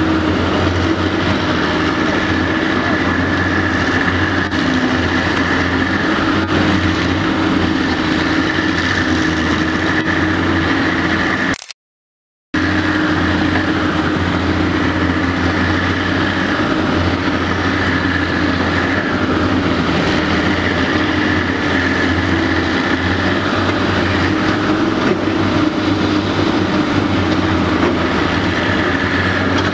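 Caterpillar 385BL ME excavator's diesel engine running steadily under work, with a constant high whine above it. The sound cuts out completely for about a second near the middle, then resumes unchanged.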